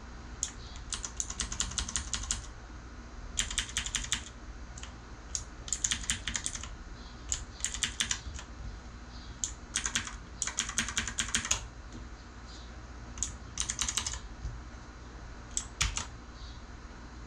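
Redragon Kumara K552-2 mechanical keyboard being typed on, its clicky switches clacking in quick runs of keystrokes with short pauses between them, about half a dozen runs in all.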